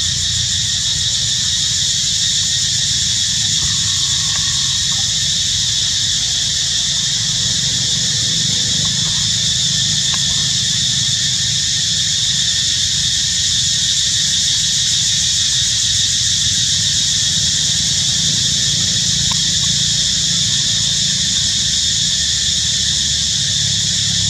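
Steady, shrill drone of an insect chorus, with a low steady hum beneath it, unchanging throughout.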